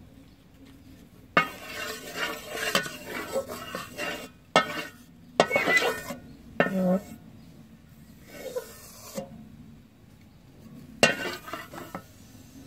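Wooden spatula scraping and knocking against the inside of a thin metal wok, in several clattering bursts that each open with a sharp knock. There is a busy spell from about a second in to about seven seconds and a shorter one near the end.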